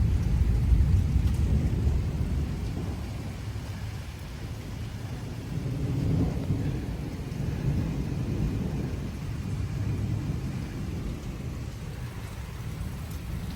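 Thunder rolling during a severe thunderstorm, loudest in the first two seconds, swelling again about six seconds in, then fading. Gusty wind and rain run under it.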